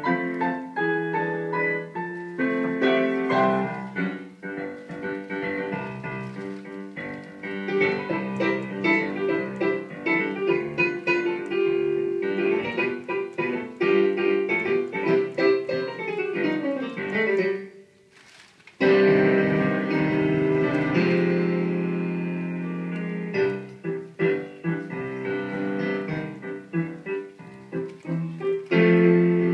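Piano music playing, a steady flow of notes; a falling run of notes leads into a pause of about a second a little past halfway, then the piano starts again.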